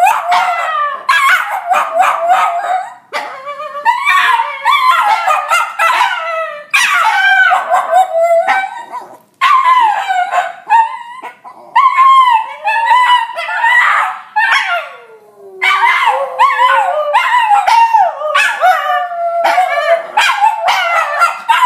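Cairn terrier and Jack Russell terrier howling: a long run of wavering howls mixed with short, sharp cries, broken by a few brief pauses. One long howl slides down to a low note a little past the middle.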